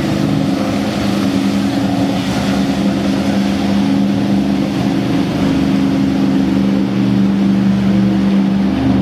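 Boat engines running steadily as a low, even drone over rushing water and wake.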